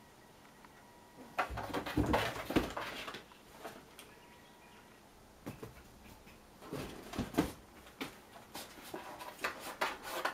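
A small cardboard box scraping and rustling over a tatami mat as cats paw at it and push into it, in three bouts of quick scuffing.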